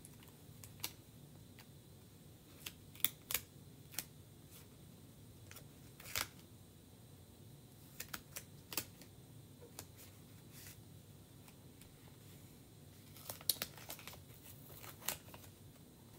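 Scattered light clicks and crinkles of a plastic adhesive stencil transfer being handled and lined up on a board, in short clusters with quiet between.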